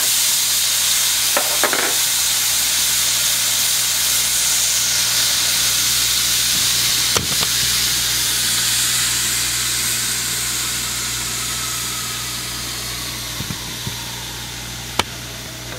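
Steam hissing out of a stovetop pressure cooker as its pressure is released by hand. The hiss starts suddenly and slowly weakens as the pressure inside drops.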